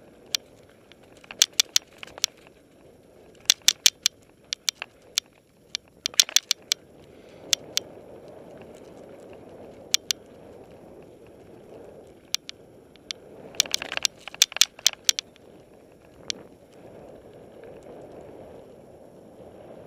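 Mountain bike rolling down a dirt singletrack: a steady tyre rush on the dirt, broken by clusters of sharp rattles and clicks as the bike jolts over bumps, the busiest clusters a few seconds in and about three-quarters of the way through.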